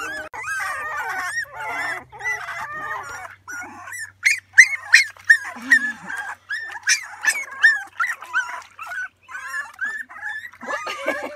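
A litter of wet puppies whimpering and yelping in short, high-pitched cries one after another, getting louder from about four seconds in; they are crying at being bathed.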